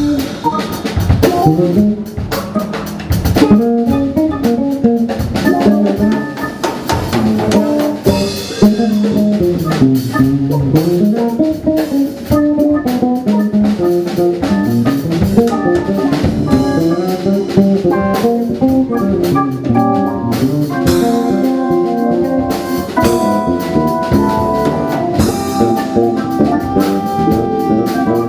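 A live jazz-fusion band plays on drum kit, electric guitar, electric bass and keyboards.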